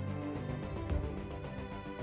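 Background music of sustained held notes, with a single percussive hit just under a second in.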